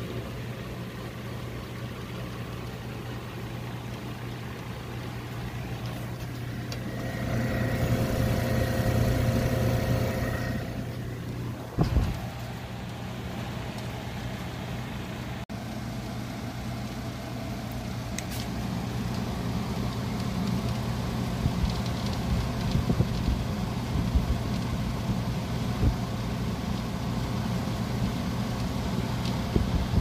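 1953 Philco-York console air conditioner running and cooling: a steady low hum from the unit with its blower's air rush, louder for a few seconds about a third of the way in. A single knock comes about twelve seconds in, and near the end the air from the grille buffets the microphone.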